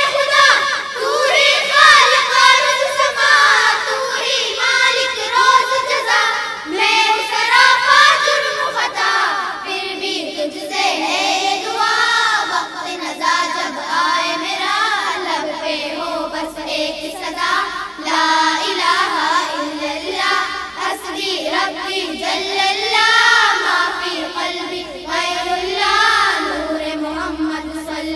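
A group of children singing an Urdu hamd, a devotional hymn praising God, in unison through a microphone and PA, with no instruments.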